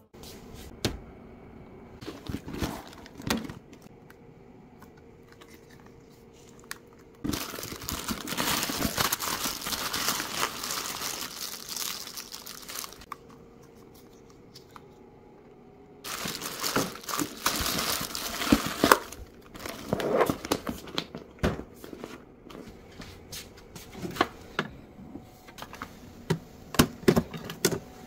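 Packaging crinkling and rustling as things are unpacked and handled, in two long stretches, one from about seven seconds in and another from about sixteen seconds in. Scattered clicks and knocks come in between.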